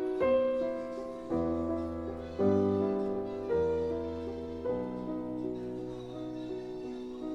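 Background piano music: a gentle melody over bass notes, with chords changing every second or so.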